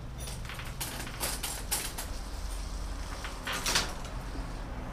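Hand work on a road bike in a repair stand: a string of short clicks, rattles and scrapes of metal parts and tools, the loudest nearly four seconds in, over a steady low hum.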